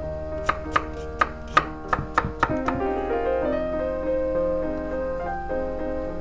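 Chef's knife chopping zucchini on a wooden cutting board: a run of about nine quick, sharp strikes in the first two and a half seconds, then the chopping stops. Soft piano music plays throughout.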